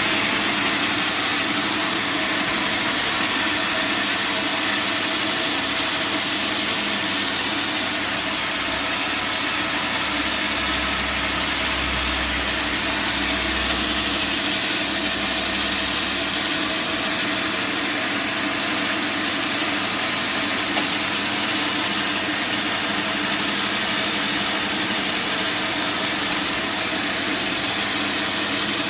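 Band sawmill machinery running steadily, a constant mechanical hum with hiss. A deeper rumble swells for several seconds near the middle.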